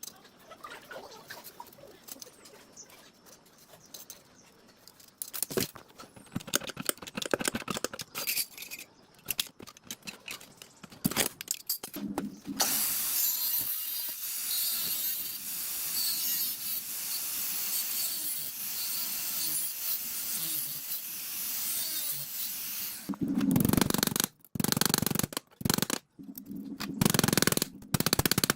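Workshop work on parts of an old generator: scattered taps and scrapes, then a steady hiss for about ten seconds, then a run of loud knocks and rattles near the end.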